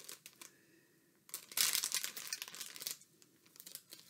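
Clear plastic bag crinkling as it is handled, with a few light crackles at first and a louder, denser stretch of crinkling from about one and a half to three seconds in.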